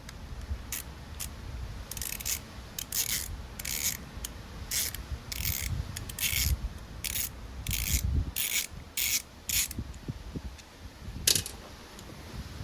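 Ratchet wrench turning a small 7 mm fastener on a lawn mower carburetor, its pawl rasping in a quick run of clicks on each back stroke. There are over a dozen strokes in an uneven rhythm, then a pause and one last stroke near the end.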